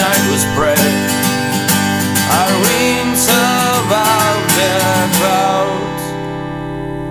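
Acoustic folk punk song: acoustic guitar strummed in a steady rhythm under a gliding melody line, the strumming stopping about six seconds in as a final chord rings out.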